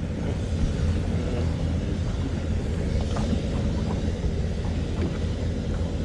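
Steady low rumble of a boat motor running, with an even hum and no change in speed.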